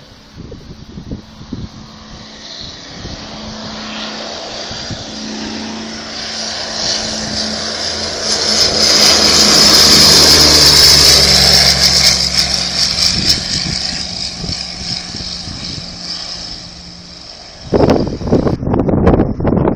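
Storch aircraft's propeller engine approaching and passing low overhead, growing louder to a peak about halfway through, then fading with its note dropping in pitch. Near the end, wind buffets the microphone.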